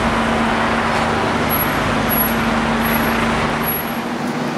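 Street noise with the steady hum of an idling vehicle engine; the low rumble drops away near the end.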